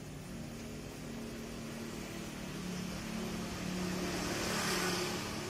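A motor vehicle's engine passing by, its hum growing louder to a peak near the end and then starting to fade.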